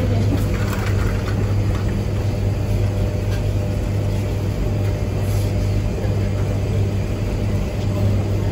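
Steady low hum and rumble of commercial tumble dryers running in a laundromat.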